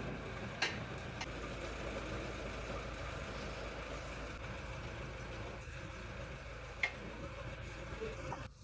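Rebuilt Toyota 1KD-FTV 3.0L four-cylinder diesel engine idling steadily, with a few sharp clicks over it. The sound cuts off abruptly near the end.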